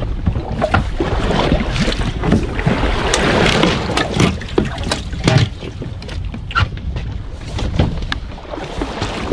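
Wind buffeting the microphone over the rumble and wash of a boat at sea, with scattered clicks and knocks throughout and a louder gusty swell a few seconds in.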